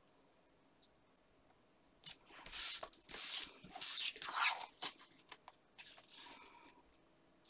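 Sheets of patterned paper and cardstock being handled: rustling and sliding paper starting about two seconds in, loudest over the next three seconds, then a few fainter rustles as a sheet is lifted and turned.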